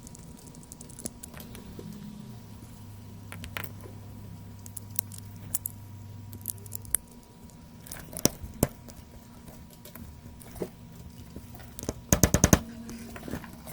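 Scattered clicks and light knocks of small hard objects being handled on a workbench, with a quick rattle of clicks near the end, over a steady low hum.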